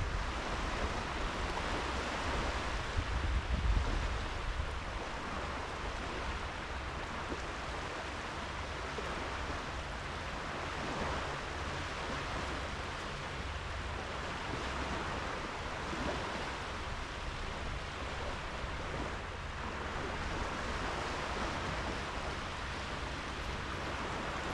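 Sea waves washing steadily onto a sandy beach, with wind buffeting the microphone in a low rumble that is strongest a few seconds in.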